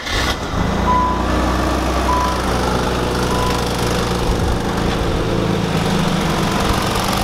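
Nissan 300ZX (Z32) V6 engine catching on a restart and settling into a steady idle. A single-tone electronic chime from the car, with its door open, beeps three times about a second apart over the first few seconds.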